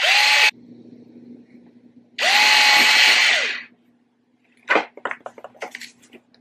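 Small cordless lithium-ion screwdriver with a drill bit whirring as it bores a hole into a dried egg gourd, in two short runs: a half-second burst, then a run of about a second and a half that spins up to a steady whine and winds down. A few light clicks and knocks follow near the end.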